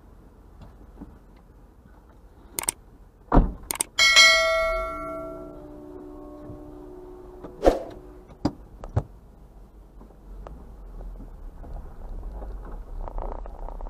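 Subscribe-button animation sound effects: a few sharp mouse-style clicks, then a bright bell ding that rings out for about a second and a half, followed by a few more clicks.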